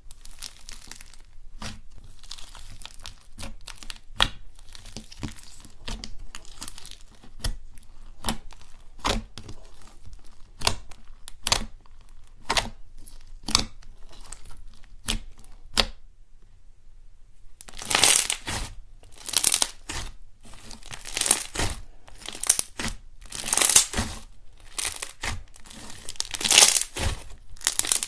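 Foam-bead slime (floam-style) being poked and pressed in its container, giving a run of sharp crackles and pops. After a short lull, louder and denser sticky crackling as the slime is squeezed and kneaded.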